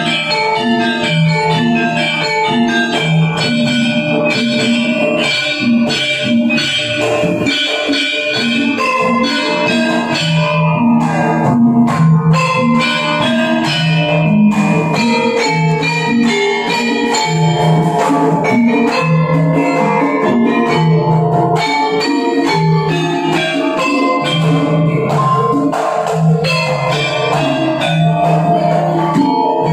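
Javanese gamelan ensemble playing a langgam: bronze metallophones and gongs ring a repeating melody while kendang drums play lively gedruk patterns in the Sragenan style, their low strokes keeping a steady beat.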